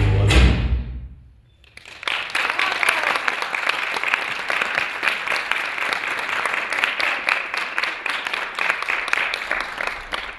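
Dance music with a heavy bass beat fades out, and after a short pause an audience claps steadily for the rest of the time.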